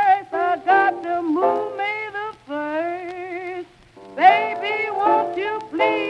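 Blues music: a wavering lead melody with vibrato over steady accompaniment, with a brief break just before the middle.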